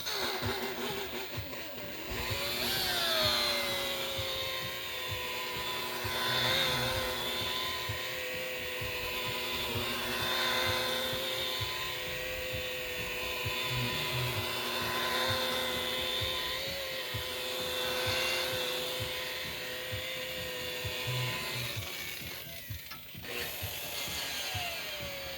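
Electric polisher spinning a foam pad against boat gelcoat, its motor giving a steady whine that drops in pitch as it is pressed onto the surface. It eases off briefly near the end and settles back down in pitch.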